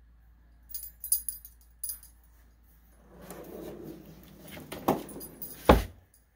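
A kitchen drawer full of metal utensils clinks and rattles, then rolls shut on metal ball-bearing slides with a rumble. It closes with a knock and a loud thump near the end.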